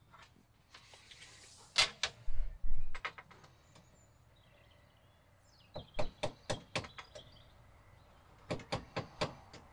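Handling noise from a steel tape measure being worked across a wooden bed frame: a few knocks with a dull thud about two seconds in, then two quick runs of sharp clicks and taps, about five each, in the middle and near the end.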